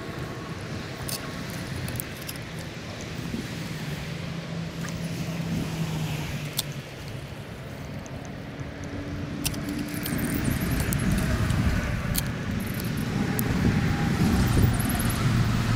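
A steady low rumble of a motor vehicle, its engine drone shifting in pitch and getting louder in the second half, over the hiss of a shallow stream, with a few light clicks.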